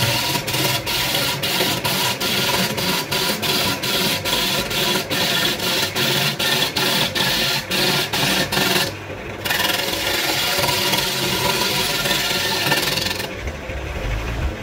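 Turning gouge cutting shavings from a large wooden blank spinning on a wood lathe, a coarse scraping over the lathe motor's low hum. The cut comes in short passes about three a second, pauses briefly partway through, and stops a little before the end, leaving the motor running.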